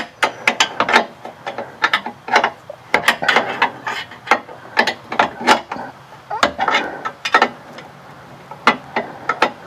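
Socket ratchet clicking in irregular short runs, with light metal knocks, as the running-board bracket bolts are worked.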